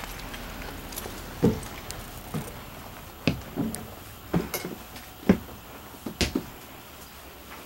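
Footsteps climbing the motorhome's entry steps and walking across its floor: a series of irregular dull thumps about half a second to a second apart, over a faint steady background.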